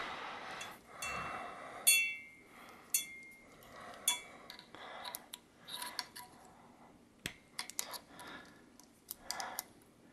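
Split ring pliers and a steel split ring clicking and clinking against a treadmill roller's axle and bearing as the ring is spread and worked over the axle, with a few short metallic rings, the loudest about two seconds in.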